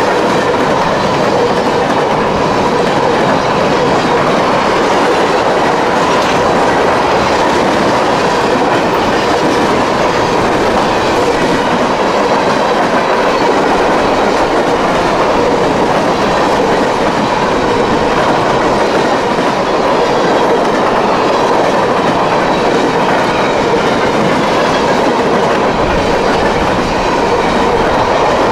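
CSX mixed freight train rolling past at close range: a loud, steady rumble and clatter of steel wheels on the rails as car after car goes by.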